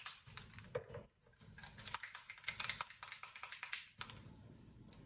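Small paint bottles being handled on a counter, likely while opening caps, making a quick irregular run of light plastic clicks and taps that thins out near the end.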